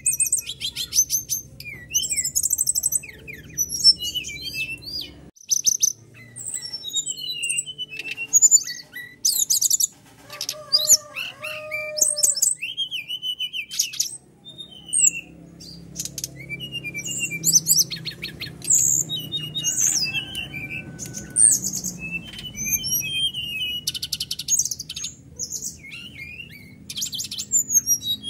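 Brown-chested jungle flycatcher singing on and off: a varied song of rapid high trills and quick whistled slurs, packed with harsh imitated notes of other birds.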